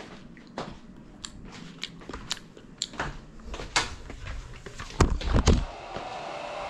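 Clicks and knocks of a small FPV drone being handled, with a few heavy thumps about five seconds in as it is set down on the floor. About a second later a steady hum starts: the GEPRC CineLog35's brushless motors idling after arming.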